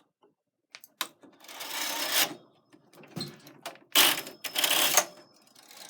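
Knitting machine carriage pushed across the needle bed twice, each pass a rattling, clicking slide lasting about a second.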